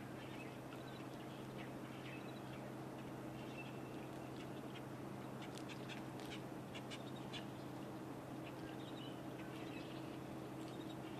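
Birds chirping faintly over a steady low hum, with a run of sharp clicks about halfway through.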